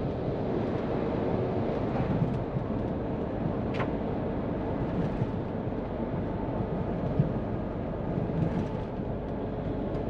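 Cab noise of a Hino tractor unit cruising on an expressway: a steady diesel engine drone and tyre and road noise, with one brief sharp tick about four seconds in.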